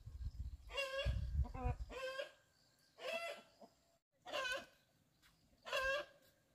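Chickens calling: short, wavering squawks repeated about once a second, some in quick pairs, with a low rumble under the first two calls.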